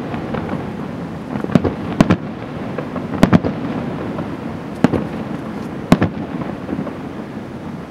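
Aerial firework shells bursting overhead: a string of sharp bangs about every second or so, some in quick pairs, each echoing briefly, over a steady low rumble.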